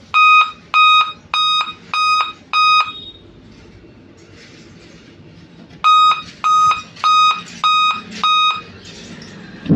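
Dell laptop's POST beep code: five short, evenly spaced beeps on one steady pitch, a pause of about three seconds, then the same five beeps again. On Dell machines a repeating five-beep code points to a failed CMOS (real-time-clock) battery.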